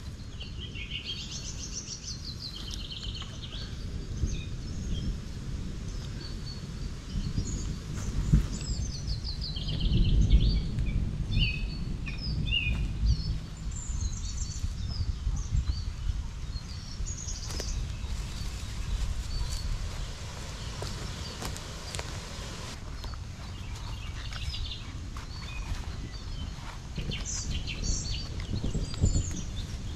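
Small songbirds chirping and trilling on and off throughout, over rustling and shuffling in dry fallen leaves as someone moves about on foot, with a louder patch of rustling about ten seconds in.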